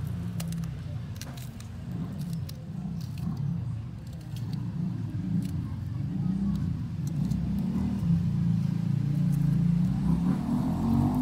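A steady low motor rumble like an idling vehicle engine, with scattered light clicks of a knife and spatula against a metal cooking pot.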